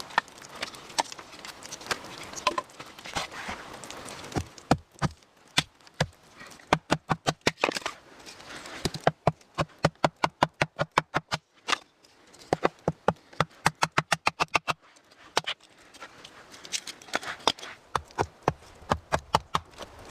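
Runs of sharp, rapid knocks, about three to four a second, stopping and starting again several times.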